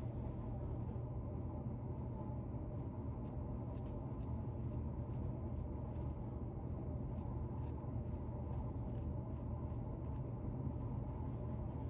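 Fingernails scratching through a beard, making rapid, irregular small scratchy clicks over a steady low hum.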